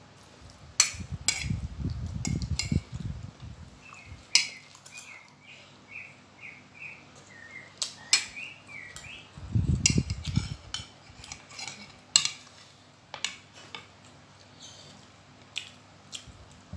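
Metal forks and spoons clinking and scraping against ceramic plates of noodles, a scattering of sharp clinks. In the middle a bird chirps a quick run of short notes in the background.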